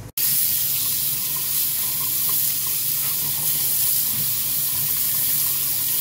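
Kitchen tap water running steadily into a sink and splashing over a gas furnace burner assembly held under the stream, washing dirt and rust debris out of the burners and their crossovers. The water starts abruptly right at the beginning.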